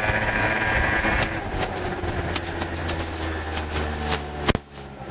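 Adly RT50's 49cc two-stroke scooter engine running steadily, with crackling noise over it, dipping briefly near the end.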